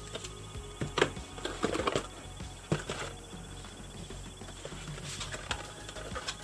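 Handling of a doll's box packaging: irregular plastic and cardboard crinkles, taps and clicks, busiest about one to two seconds in, with quiet background music.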